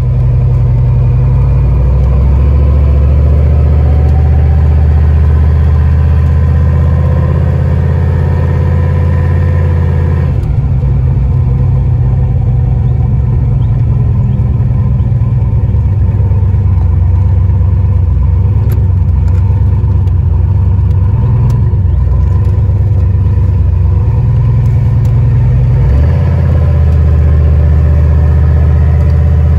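1988 Ford Mustang (Foxbody) engine running, heard from inside the cabin while the car is driven; a steady low rumble whose note changes about ten seconds in and again near the end.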